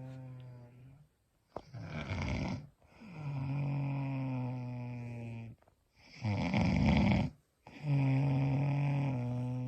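A woman snoring in steady rhythm. Each breath brings a short rough snore and then a longer droning tone that sags slightly in pitch, with a breath about every four and a half seconds.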